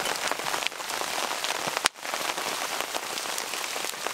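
Steady rain falling on a canvas tarp shelter, a dense patter of many small drop impacts. There is a sharp click and a momentary break in the sound just under two seconds in.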